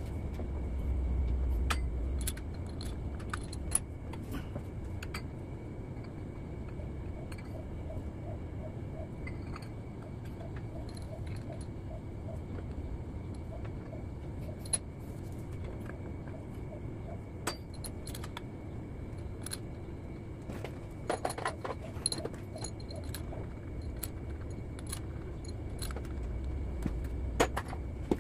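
Scattered metal clinks, taps and tool clicks as a gear and its housing are fitted and bolted onto the front timing plate of a Caterpillar 3406 diesel engine, with a run of faint quick ticks midway and bunches of sharper clinks near the end, over a steady low shop hum.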